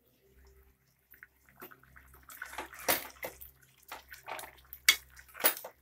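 Metal ladle stirring thick chicken gravy in an open pressure cooker pot: the liquid sloshes while the ladle scrapes and knocks against the metal sides, starting after a short quiet, with the sharpest knocks about three and five seconds in.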